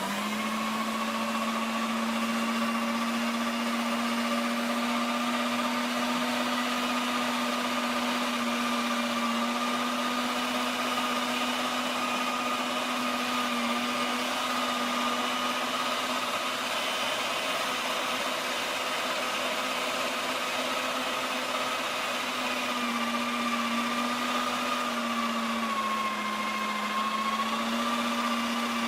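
Cuisinart electric meat grinder's motor running steadily as it grinds short ribs into coarse hamburger meat, a constant hum whose pitch dips slightly a few times near the end.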